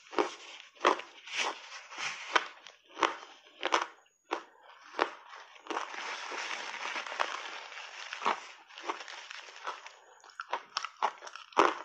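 Ice cubes coated in dry matcha powder being bitten and chewed: sharp crunches about every half second for the first few seconds. Then several seconds of steady rustling as a tissue is rubbed over the mouth, and the crunching picks up again near the end.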